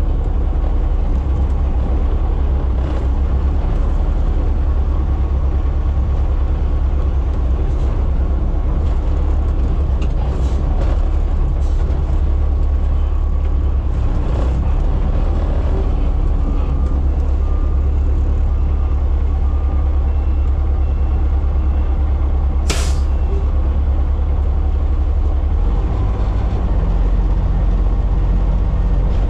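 Front-loader garbage truck's diesel engine running steadily, heard from inside the cab. About three quarters of the way through comes one short, sharp air-brake hiss, and near the end the engine note shifts as the forks lift the dumpster.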